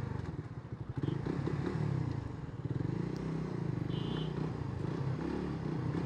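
Motorcycle engine running under way, its revs rising and falling. The engine is new and still in its break-in period. A short high beep sounds about four seconds in.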